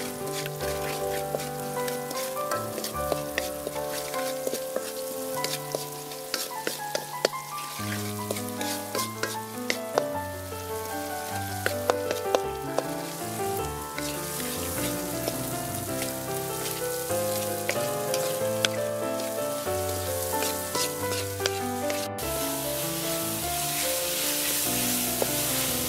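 Scallions and then fresh corn kernels sizzling in oil in a large metal wok, with a wooden spatula stirring and scraping in sharp clicks; the sizzle turns into a louder, steady hiss near the end. Background music plays throughout.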